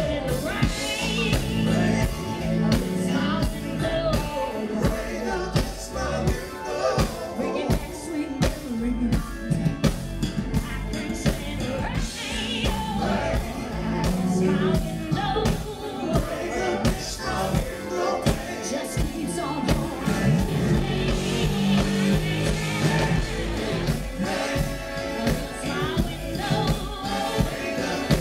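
Live funk band playing: a woman sings lead over a steady drum beat and electric bass guitar.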